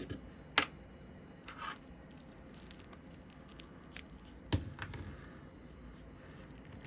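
Hands handling and posing a plastic action figure: a few scattered sharp clicks and brief rustles as its joints are moved, the loudest click about four and a half seconds in.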